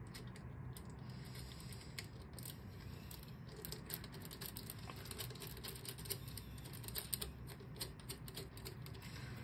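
Faint, irregular small metallic clicks and ticks as a screw is turned by fingers into the burr carrier of a Wug2 83a coffee grinder.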